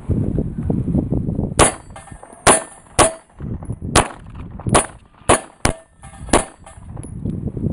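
Eight pistol shots of 9mm +P ammunition at an uneven pace, most of them followed by the brief ring of the steel plate target being hit.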